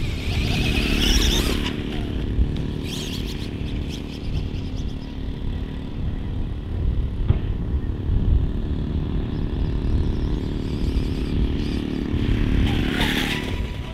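Electric motor and drivetrain of a Losi Promoto MX 1/4-scale RC motorbike whining as it is driven over grass. The whine rises in pitch under throttle in the first second or so and again near the end, over heavy wind noise on the microphone.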